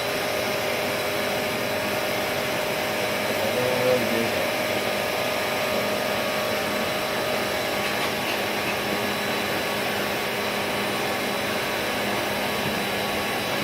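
Vacuum cleaner running steadily, its hose held to a cat's fur to suck out fleas.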